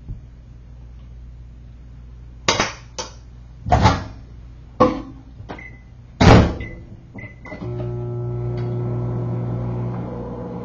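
Half a dozen knocks and clatters of things being handled, then a few short electronic beeps. About two-thirds of the way in, a steady electric appliance hum with a buzzing tone starts and keeps going.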